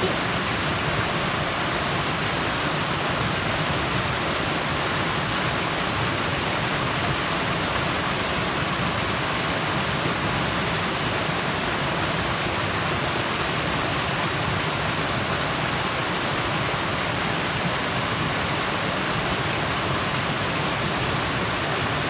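Small creek cascade pouring steadily into a shallow pool, an even, unbroken water noise.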